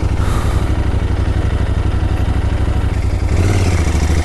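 Royal Enfield Interceptor 650's parallel-twin engine running at low revs with a steady low throb as the bike rolls slowly along a dirt trail. The engine gets slightly louder about three seconds in.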